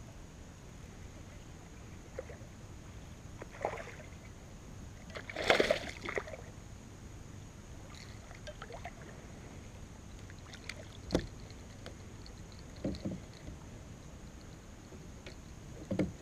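A hooked fish splashing at the surface as it is reeled in beside a plastic kayak, the biggest splash about five seconds in. Scattered knocks and thumps against the hull follow, and a pair of thumps near the end as the fish comes aboard.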